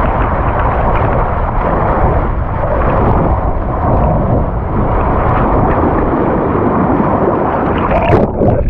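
Rushing water and air buffeting a point-of-view camera's microphone during a fast ride down a water slide: a loud, steady rumbling rush with a brief sharper burst near the end, after which it drops away.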